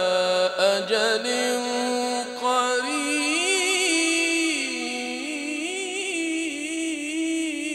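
A male voice reciting the Quran in melodic tajweed style, holding long drawn-out notes whose pitch wavers and turns in ornaments.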